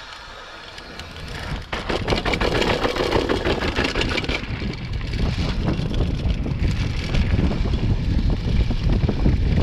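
Mountain bike descending a dirt forest trail: tyres rolling and parts rattling over rough ground, with wind buffeting the microphone. The rattling is loudest from about two to four and a half seconds in.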